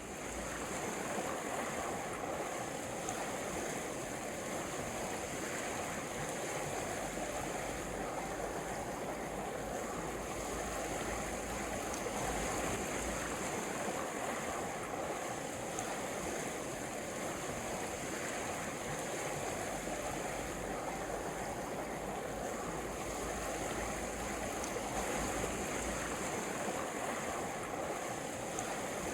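Mountain river running, a steady rush of water.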